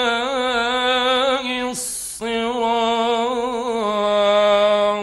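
A male Quran reciter's voice in the ornamented Egyptian mujawwad style, drawing out the close of 'sawāʾ' and then 'aṣ-ṣirāṭ' on one long held note. The note drops a step in pitch about four seconds in and breaks off at the end.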